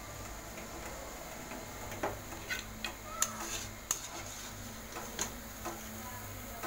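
Gulab jamun dough balls deep-frying in a pan of oil: a faint, steady sizzle with scattered light clicks.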